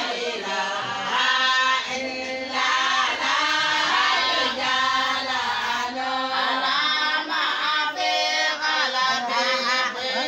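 A group of Somali Bantu women singing a song together, many voices at once, with no break.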